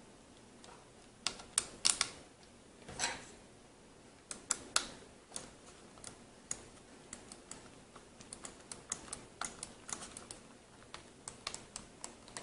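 Gaming mouse's Omron microswitch buttons clicking: sharp, irregular small plastic clicks, several a second, beginning about a second in, with a few louder clicks early on.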